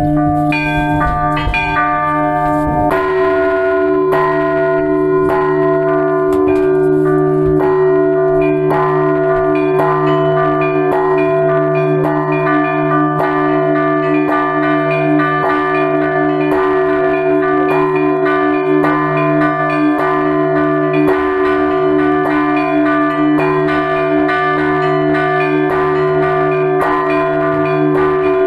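Russian Orthodox church bells rung together in a continuous peal: quick, dense strokes of the smaller bells over the steady, sustained hum of larger, lower bells.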